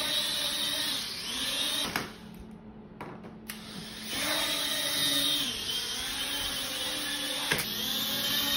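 Small quadcopter drone's propellers and motors whining, the pitch rising and falling as the throttle changes. The sound drops out for about a second and a half around two seconds in, then picks up again.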